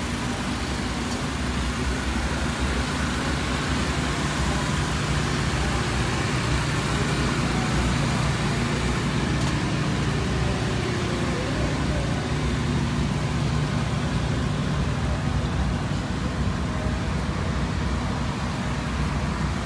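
A steady, unbroken low engine drone with a hiss over it, holding the same pitch throughout.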